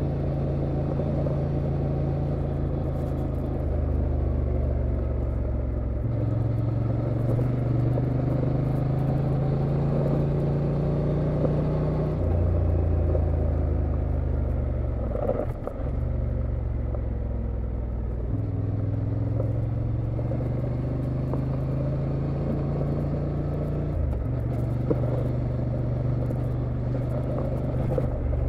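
Exhaust and engine of a 2023 Honda XL750 Transalp's 755 cc parallel-twin running under way. The steady engine note steps up and down in pitch several times with throttle changes, and briefly drops in level and pitch about halfway through.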